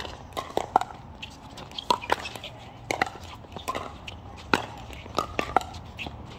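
Pickleball paddles hitting a hard plastic ball through a fast rally: a quick, irregular string of sharp pops, some louder and closer than others.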